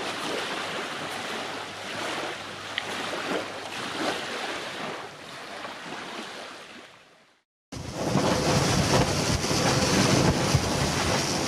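Wind and water noise that fades out about seven seconds in. After a brief silence comes louder wind buffeting the microphone over rushing water from a sailing yacht heeled over in about 20 knots of wind.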